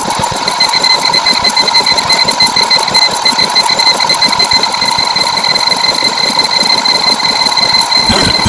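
Loud, continuous alarm-like ringing: a fast rattling pulse under steady high tones. Shortly before the end, a lower rattling, engine-like rumble comes in.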